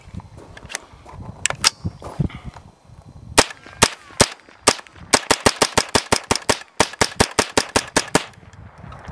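Smith & Wesson M&P15-22 semi-automatic .22 LR rifle firing a magazine of mixed-brand ammunition, 21 rounds in all, with no stoppage. A few lighter clicks come first, then four spaced shots, then a rapid string of about four or five shots a second that stops about a second before the end.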